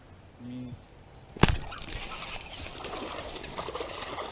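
A sharp knock about a second and a half in, then a hooked bass splashing at the surface beside the boat as it is brought in to be landed.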